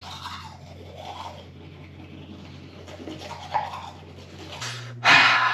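Teeth being brushed with a toothbrush: uneven scrubbing strokes over a steady low hum. Near the end a much louder, steady rushing noise starts.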